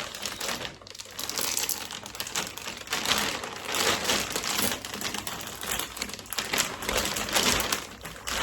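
Plastic vacuum storage bag crinkling, with many small irregular clicks, as the sealing clip is run along its zip closure.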